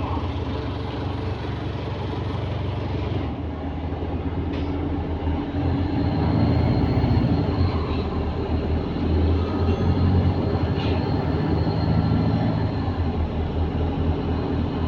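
A London double-deck bus's diesel engine and drivetrain running while the bus drives along, heard from inside the bus: a steady low hum that gets louder about five seconds in as the bus pulls harder.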